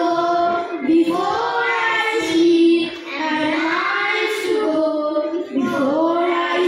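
Children singing a slow melody with long held notes, amplified through microphones.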